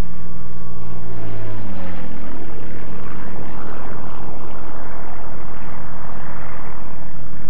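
P-51 Mustang fighter in flight going into a left spin: its engine note falls in pitch over the first two seconds, then gives way to a steady rushing noise.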